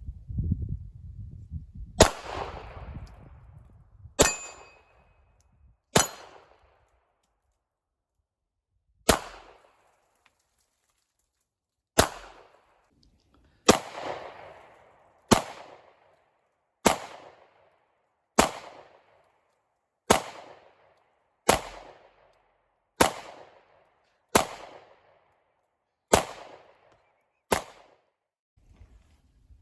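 Gunshots fired one at a time, about fifteen in all, each with a short echo. The first few come a couple of seconds apart, then they settle into a steady pace of about one every one and a half seconds.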